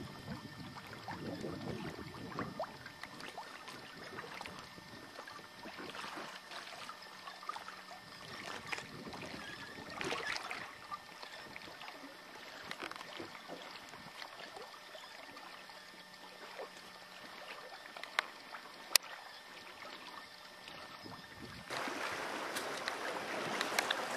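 Water splashing and gurgling along the hull of a small sailing yacht under way, with a couple of sharp clicks. About three-quarters of the way through, a louder steady hiss takes over.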